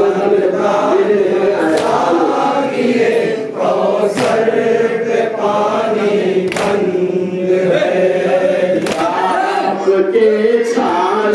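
A group of men chanting a nauha, a Muharram lament, in unison. A sharp slap marks the beat about every two and a half seconds, in the manner of matam chest-beating.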